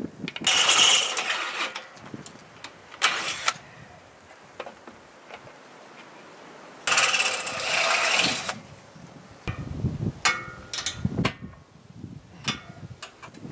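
Cordless drill running in three bursts, about a second and a half near the start, a short one around three seconds in and a longer one midway, as fasteners are driven to mount a steel ladder.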